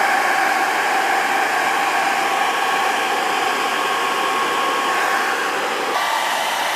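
Hair dryer running steadily on its warm setting, blowing through half a plastic bottle into an air mattress to inflate it; its tone shifts slightly about six seconds in.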